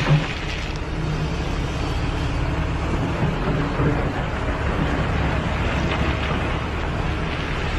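Engine running steadily: a low rumble under a hissing, wind-like noise.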